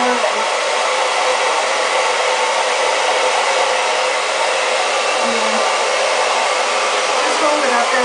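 Handheld hair dryer running steadily, blowing a constant even rush of air onto a section of wet hair.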